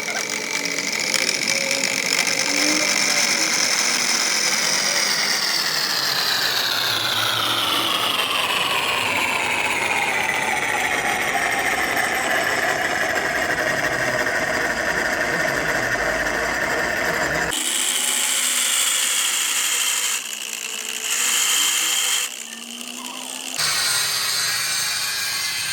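A workshop machine or power tool whining with a ringing pitched tone that rises slightly and then falls slowly over about ten seconds. It is followed by several short stretches of machine noise that start and stop abruptly.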